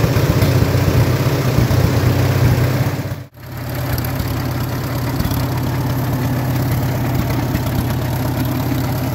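1944 Farmall A's four-cylinder gasoline engine idling steadily. The sound drops out for an instant about three seconds in, then the engine carries on a little quieter.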